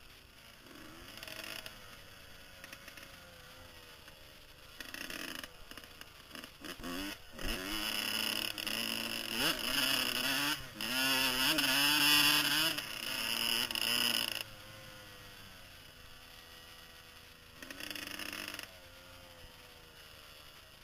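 Kawasaki KX125 two-stroke single-cylinder dirt bike engine under way, its pitch rising and falling as the throttle opens and closes. It is loudest through the middle stretch, where the revs climb, then falls back to a lower, quieter run.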